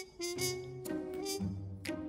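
Background music: a melody of held notes over a low bass line.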